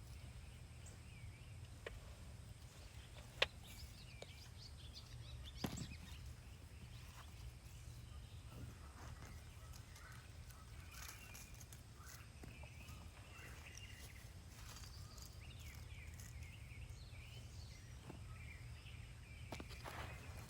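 Hands digging and rummaging through loose potting soil in a fabric grow bag, heard as faint rustles and a few soft clicks, one sharper click about three seconds in. Birds chirp faintly behind it over a steady low outdoor rumble.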